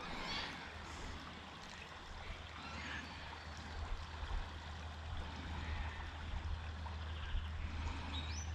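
Quiet riverbank ambience: a soft hiss of flowing river water over a low steady rumble, with a few faint high chirps, one rising near the end.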